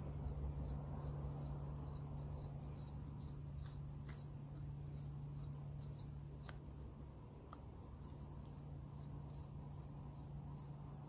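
A knife blade shaving curls off a piece of birch wood in short, repeated strokes, each cut giving a dry, crisp tick, over a steady low hum.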